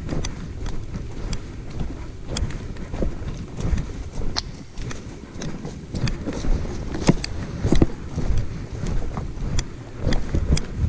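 Footsteps of a person walking along a dirt and grass path, about one and a half steps a second, over a steady low rumble.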